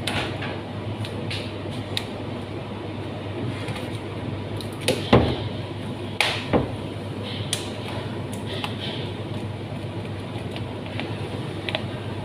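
Plastic cling film being pulled from its roll and pressed over a bowl, with irregular crinkles and crackles, loudest about five and six and a half seconds in. A steady background hum runs underneath.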